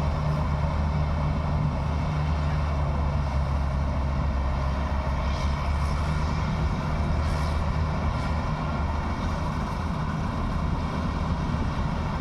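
Claas Crop Tiger 40 combine harvester's engine running steadily at a constant speed.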